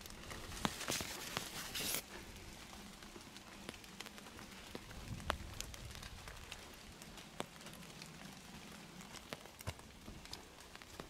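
Footsteps on a trail: irregular sharp ticks and crunches, with a brief rustle in the first two seconds.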